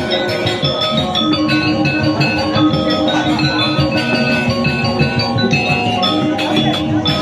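Balinese gamelan playing: ringing bronze metallophones and gongs with drums, a dense run of held, stepping notes.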